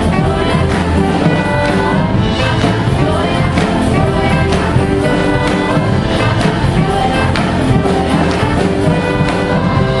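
A school choir and band performing live, singing over instrumental accompaniment with a steady beat.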